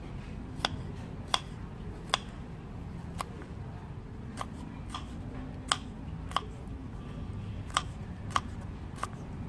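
Knife slicing garlic cloves thin on a wooden chopping board: about a dozen sharp knocks of the blade striking the board, coming irregularly every half second to a second.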